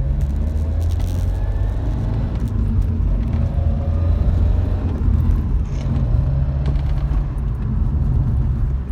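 1996 Subaru Legacy 2.2-litre flat-four under acceleration: a steady low engine and road rumble with a faint whine that rises in pitch, twice. This is the unexplained whine that the owner hears only under acceleration.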